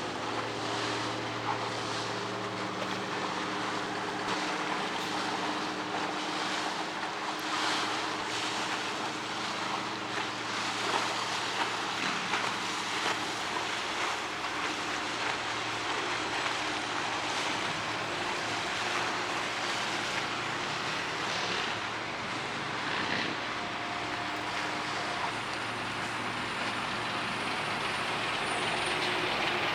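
Inland push boat's diesel engine running steadily under way, a low even hum with a broad rushing noise over it.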